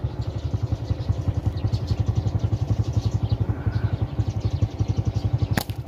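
A small engine running steadily, its rapid, even pulses carrying through the whole stretch, with one sharp click about five and a half seconds in.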